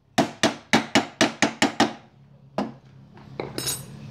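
Hammer rapping on the metal burner housing of a Fischer gas cooktop to free a part that is stuck fast: about eight quick ringing metal strikes, four to five a second. Then two single knocks and a short metallic jingle near the end.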